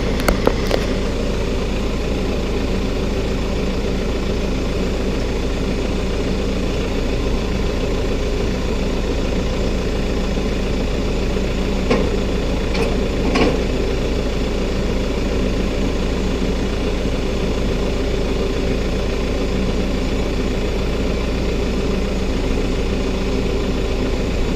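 Tractor engine idling steadily, with a couple of short knocks about halfway through.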